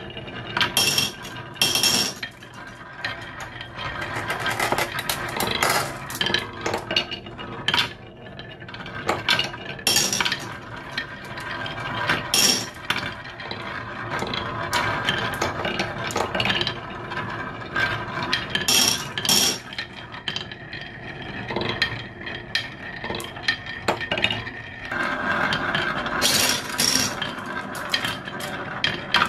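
Glass marbles rolling down carved wooden zigzag marble-run tracks: a steady rolling rumble with many irregular sharp clicks and clacks as they hit the wooden turns and one another.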